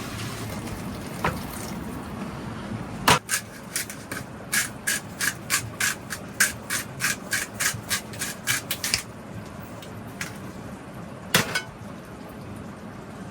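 A low rushing noise stops with a sharp knock. Then comes a run of about sixteen quick, even taps, roughly three a second, from a hard object being struck, and a single knock near the end.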